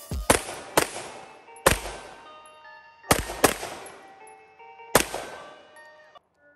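FN 509 Tactical 9mm pistol firing about seven shots at an uneven pace, each a sharp report with a short echo trailing after it. The last shot comes about five seconds in.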